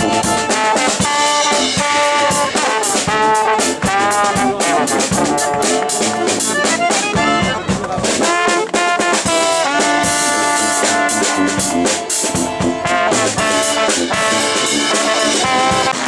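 Live brass band playing a lively tune: trombone and other brass over a drum kit keeping a steady beat.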